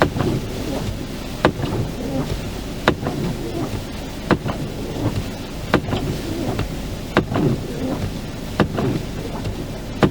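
Windscreen wipers knocking at the end of each sweep, one sharp knock about every second and a half, over a steady rumble of blizzard wind and van engine heard from inside the cabin.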